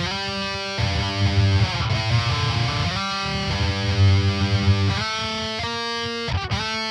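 Distorted electric guitar, an Aristides, playing a heavy metal riff: sustained chords ringing over strong low notes, changing chord about every second or two.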